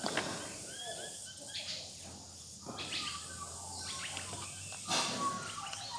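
Birds calling faintly in a few short chirps, with a couple of light clicks.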